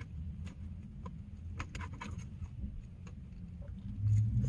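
Steady low rumble inside a parked van, with scattered light clicks and taps, and a brief low hum about four seconds in.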